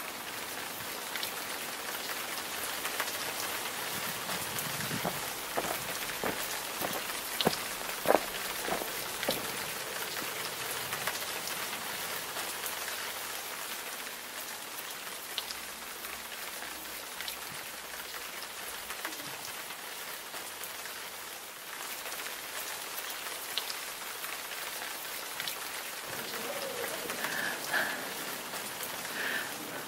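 Steady rain falling: an even hiss with scattered individual drop taps, a few sharper ones about eight seconds in.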